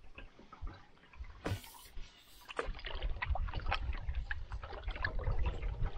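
Canoe paddle working the water: splashes and drips off the blade with the gurgle of each stroke, busier from about halfway in, and one sharp splash about a second and a half in.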